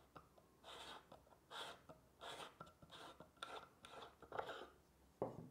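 Hand peg reamer scraping wood as it is turned in a violin's peg hole, widening the hole so the Wittner Finetune peg can go deeper: about seven faint scraping strokes, roughly one every half second. A brief, dull, louder sound comes near the end.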